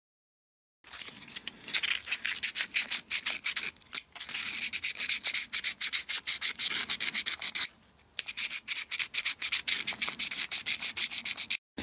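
A steel knife blade cut from an old saw blade, rubbed back and forth on a wet sharpening stone to hone and polish it. The strokes are quick and even, about four or five a second, starting about a second in, with a brief pause about eight seconds in.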